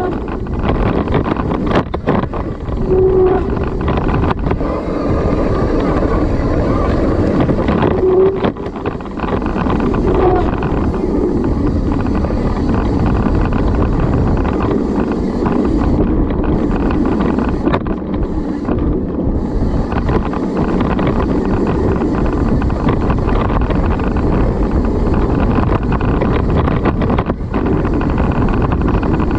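Steady rumble of wind buffeting the microphone and tyre and trail noise from a mountain bike being ridden down a dirt trail, with a few short pitched squeaks in the first ten seconds or so.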